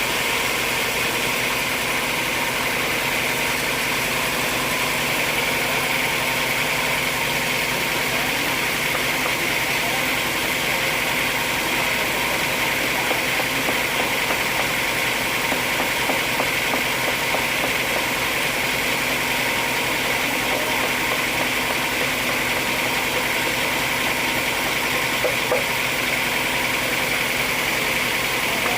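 An engine or machine running steadily at an even level, with a constant hum of several fixed tones.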